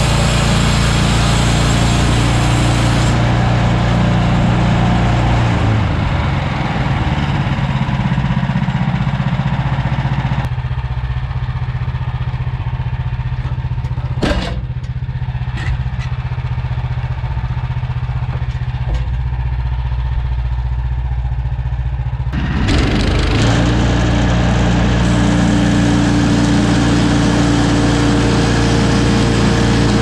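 Woodland Mills HM130MAX portable bandsaw mill running, its gas engine steady under load as the band blade saws along a log. The sound turns duller for about twelve seconds in the middle, with a sharp tick or two in that stretch.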